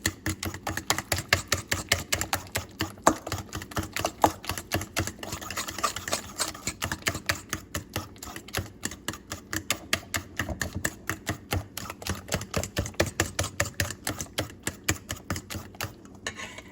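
A fork beating muffin batter of mashed banana, egg, sugar and oil in a bowl: quick, steady tapping and scraping of the fork against the bowl, several strokes a second, stopping just before the end.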